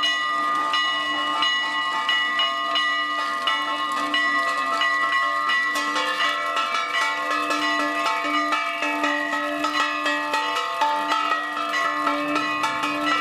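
Many bells ringing in quick, overlapping strokes over a steady held low tone.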